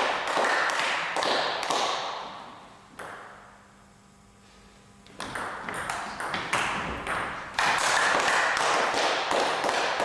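A table tennis rally: the celluloid ball clicks sharply and quickly off the rubber paddles and the table, over and over. About halfway through there is a short quiet pause between points, and then the clicking starts again.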